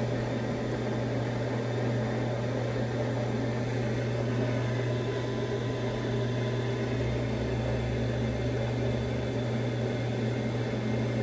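Newly replaced inducer motor on a Magic-Pak packaged gas heating unit running with a steady hum, the unit starting its heating call. A deeper low rumble joins for about two seconds near the middle.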